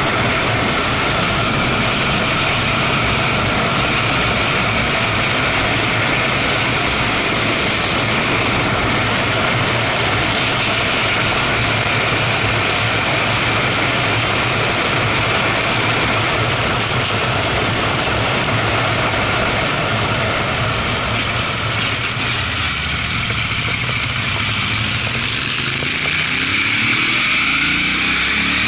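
Moto Guzzi California 1400 Touring's transverse V-twin engine running under load on a steady climb, heard from an action camera on the bike with heavy wind noise over the microphone. Near the end the revs climb as the bike accelerates.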